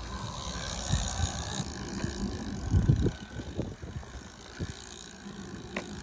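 Trek Speed Concept time-trial bike with a disc rear wheel rolling past on asphalt: tyre noise on the road, with gusts of wind buffeting the microphone. A single sharp click near the end.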